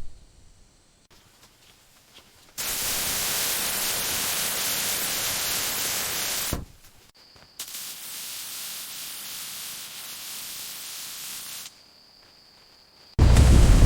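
Steady hissing noise in two abrupt stretches of about four seconds each, the first loud and the second quieter with a faint high whistle, separated by short near-silent gaps.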